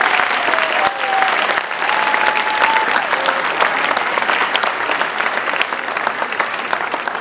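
Audience applauding steadily, with a couple of short high calls over the clapping in the first few seconds.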